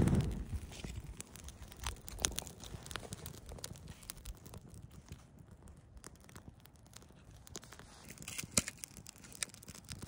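Scattered light crackles and crunches as a smouldering campfire's embers, ashes and kindling are handled. A sharper crack comes about two seconds in and another near the end.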